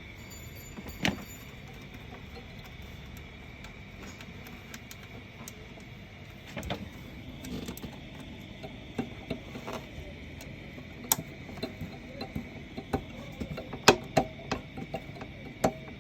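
Scattered metallic clicks, clinks and knocks of shredder parts and tools being handled during a repair, over a steady high-pitched hum. The sharpest knocks come about a second in, around the middle and toward the end.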